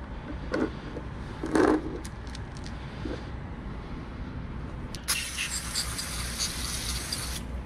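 A few light metallic clicks and one louder knock about a second and a half in, then an aerosol can spraying a steady hiss for a little over two seconds onto the steel ring-gear bolts in a metal parts tray, cleaning them.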